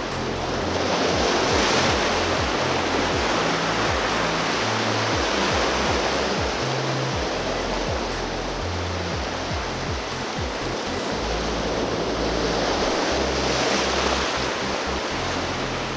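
Sea waves surging and breaking over a rocky shore, swelling louder about a second in and again near the end, with background music carrying a stepped bass line underneath.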